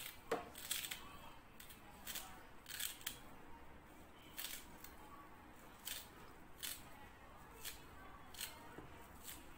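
Kitchen knife slicing through a bunch of parsley held in the hand, each cut through the stems giving a crisp snip, about a dozen at uneven intervals.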